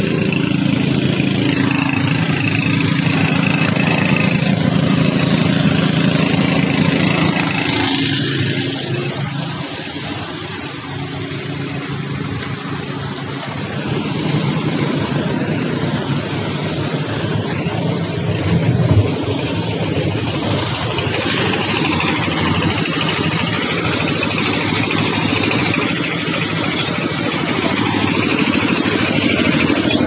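A small engine running steadily with a steady hum. It drops back somewhat about eight seconds in and picks up again a few seconds later. A short loud knock comes about nineteen seconds in.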